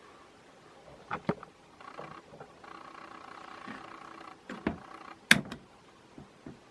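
48-inch DEMCO industrial ceiling fan running: a steady motor hum that drops out and comes back in places. Several sharp clicks sound over it, the loudest about five seconds in.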